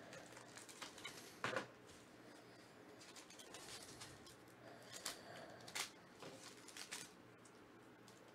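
Faint crinkling of a foil trading-card pack being handled, in a few short scattered bursts.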